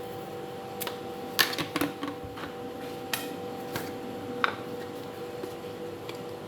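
Light clinks and taps of kitchen utensils against bowls and containers while salt and flour are added to boiled potato. There are about six scattered, sharp ticks over a steady faint hum.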